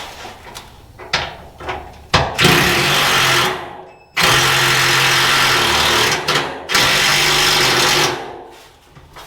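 Handheld power tool run in three bursts of one to two seconds each, with short pauses between.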